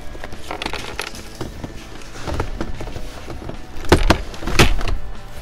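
Plastic glove compartment being fitted back into a pickup's dashboard: a run of small plastic clicks and rattles, then two louder knocks about four seconds in.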